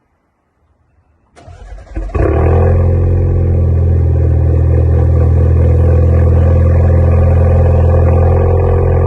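Alfa Romeo Giulia Quadrifoglio's 2.9-litre twin-turbo V6 starting up about a second and a half in, then running at a steady idle.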